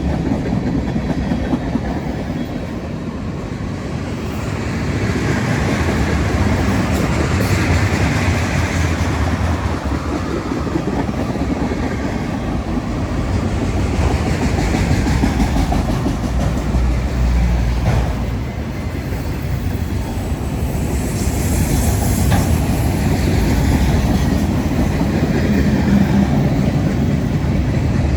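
CSX freight train rolling past, its steel wheels running on the rails in a steady, loud rumble.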